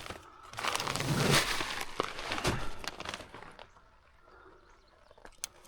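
Rustling and crinkling of a bag of deer feed and mineral being handled and set aside, for about three seconds, then a faint background with a few small clicks.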